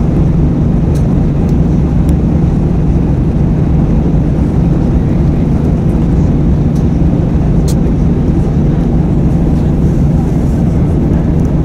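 Airbus A320 cabin noise during descent: a loud, steady drone of engines and airflow with a constant low hum and a few faint clicks.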